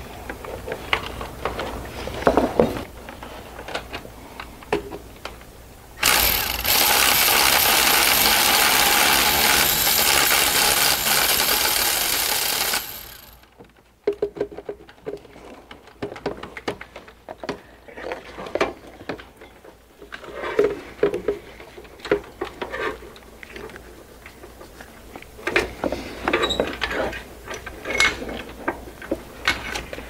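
Cordless electric ratchet running steadily for about seven seconds, from about six seconds in, spinning out a starter mounting bolt. Scattered clicks and clinks of sockets and hand tools come before and after it.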